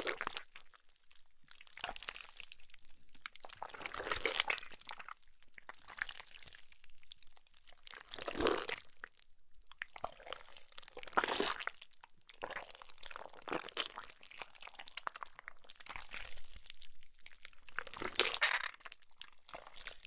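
Zombie blood-and-gore sound effects: a run of about ten short, wet squishes and crunches, one every two seconds or so.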